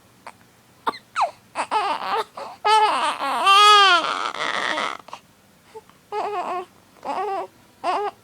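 A six-week-old baby crying in bursts, with one louder drawn-out wail about three and a half seconds in, then a few shorter cries near the end.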